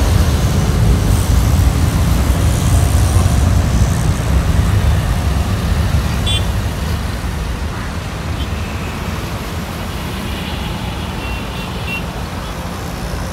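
Steady low rumble of road traffic mixed with the distant roar of a Boeing 747's four jet engines on its takeoff roll, slowly fading as the jet moves away. Brief vehicle horn toots sound about six seconds in and again near the end.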